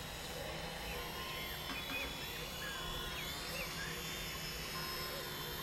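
Distant quadcopter's electric motors and propellers humming steadily in flight.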